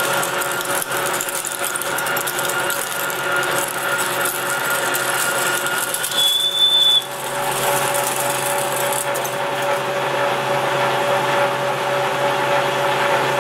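Metal lathe spinning an aluminium workpiece while a large twist drill cuts into it: a steady machine hum with a brief high-pitched squeal about six seconds in.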